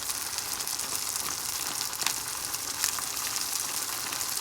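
Ground horse gram and pepper paste frying in hot coconut oil in a pan, with a steady sizzle and scattered small crackles.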